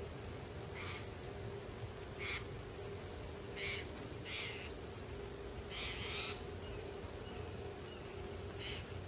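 Spotted Towhee giving its buzzy, mewing call about six times at uneven intervals, each call short, over a faint steady low hum.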